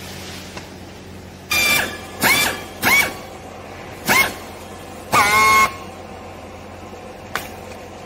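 Handheld strapping tool tensioning and sealing a plastic strap around a bale: its motor whines in five short bursts, each rising in pitch as it spins up, followed by a single click near the end.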